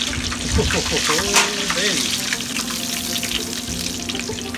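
Battered tilapia deep-frying in a stainless saucepan of canola oil, a steady dense crackling sizzle as a wire skimmer moves the fish in the oil. The oil is at about 425°F, which the cook thinks may be a little too hot because the fish cooks very fast.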